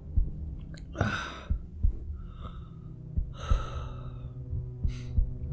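A man with a respiratory cold breathing in and out through his nose, four audible breaths, to show it is only slightly blocked. Underneath runs a steady low hum with soft, regular low thumps.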